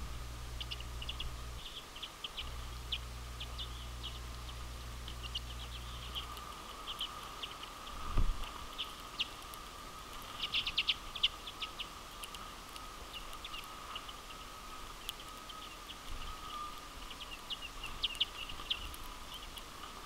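Common redpolls calling at a feeder: a scatter of rapid, high chips and twitters, over a steady faint background hum. A single low thump comes about eight seconds in, the loudest sound here.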